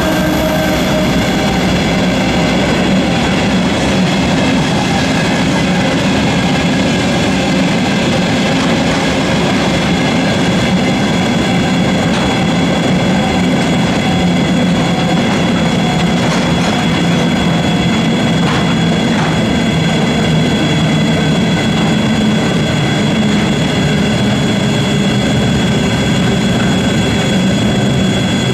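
Freight train of tank wagons rolling past at speed, a steady loud rumble and rattle of wheels on rails.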